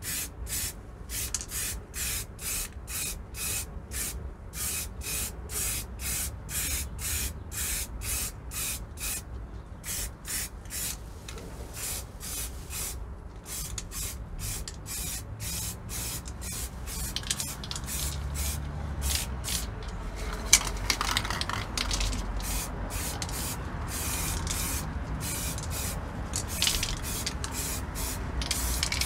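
Aerosol spray can of metallic blue paint spraying in many short hissing bursts, about two or three a second, then in longer, closer bursts later on: the final colour coat going on.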